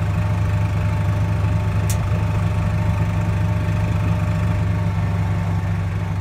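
A small utility vehicle's engine running steadily while under way, a low even drone heard from its cargo bed. There is a faint click about two seconds in.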